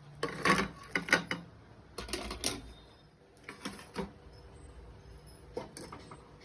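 Kitchen utensils being handled: scattered short clicks and light knocks, in small clusters of two or three.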